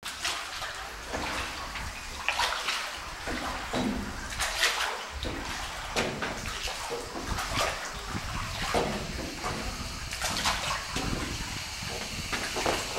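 Oars dipping and pulling through the water of a small rowed boat: splashes and drips at an uneven rhythm, about one a second.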